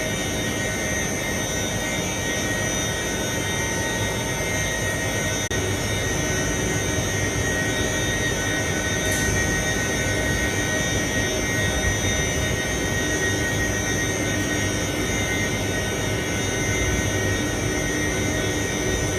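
A machine engine running steadily at a constant speed: a steady roar with high, unchanging whining tones over it.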